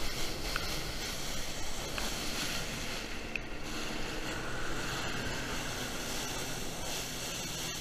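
Steady rushing spray of a flyboard's water jets blasting down onto the lake surface, with a faint low steady hum joining underneath about three seconds in.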